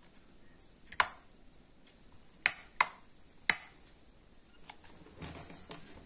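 Sharp clicks of hard plastic parts being handled, four in all, the middle two close together, then a brief soft rustle near the end.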